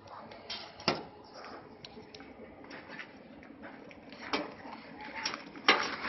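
Gear being packed into a nylon bag: fabric rustling and handling, with scattered sharp knocks of tools against each other, one about a second in and several near the end, the loudest of them near the end.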